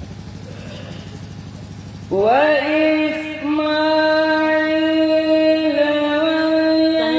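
A low steady hum, then about two seconds in a singer over a PA loudspeaker starts a devotional chant, holding long, drawn-out notes with slight bends in pitch.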